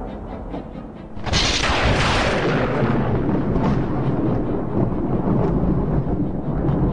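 Thunder sound effect: a low rumble, then a sudden sharp thunderclap about a second in that rolls on into a long rumble.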